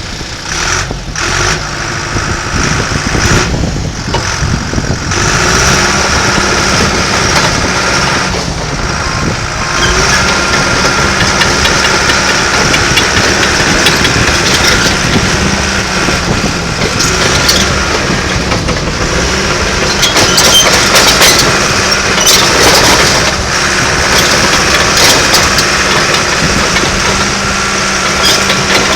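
John Deere 650J crawler dozer's diesel engine running steadily, growing louder a few seconds in, with short clanks and clicks here and there.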